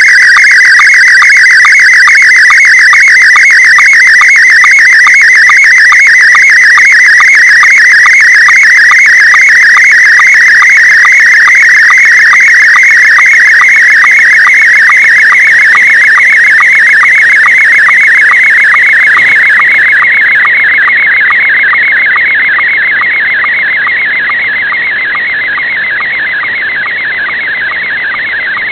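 Slow-scan television (SSTV) picture signal received over shortwave single sideband: a loud warbling tone that shifts rapidly in pitch, with a quick, even ticking as each image line repeats several times a second, over a hiss of band noise. About twenty seconds in it turns a little duller and quieter.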